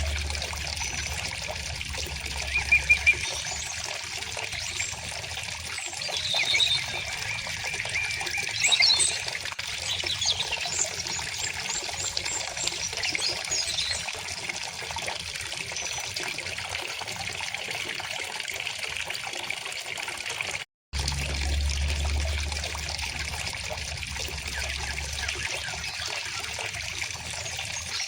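River water flowing and trickling steadily, with small birds chirping and singing at intervals over it. The sound cuts out completely for an instant about three-quarters of the way through.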